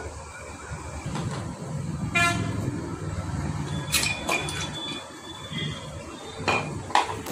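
A vehicle horn toots briefly about two seconds in, over the low rumble of passing traffic. Several sharp metal clinks follow as the cylinder head of a Honda Shine engine is worked loose and lifted off.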